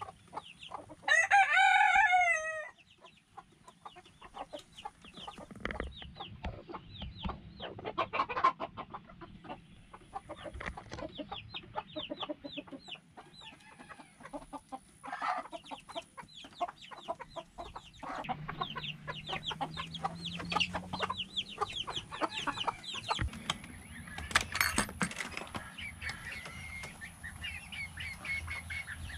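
A rooster crows once, loudly, about a second in. A mixed backyard flock of chickens, including silkies and bantams, keeps up a continual scattered clucking and chattering.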